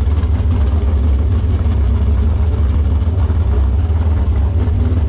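The 468 cubic inch big-block Chevy V8 in a V-drive Sanger hot boat, running steadily with a deep, even rumble.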